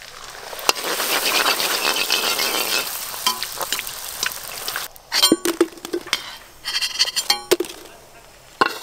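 Fuchka (pani puri) dough discs frying in hot oil in an iron kadai, a loud crackling sizzle that builds in the first second and dies down after about five seconds as the puris puff. Then a few sharp metallic clinks of the slotted spoon against the pan and bowl.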